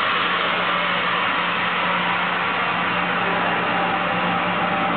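Steady loud hiss of air from a standing locomotive, with a steady low hum beneath it.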